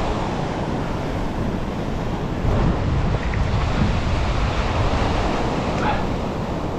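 Strong wind buffeting the microphone over heavy surf breaking on the shore, a steady low rumbling roar.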